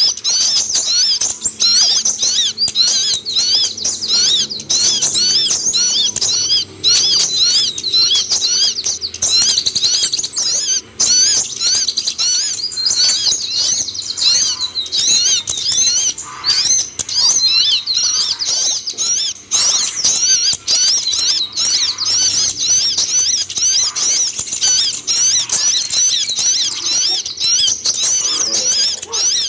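Van Hasselt's sunbird (kolibri ninja) singing: a dense, unbroken run of rapid, high-pitched chirping twitters, many notes a second.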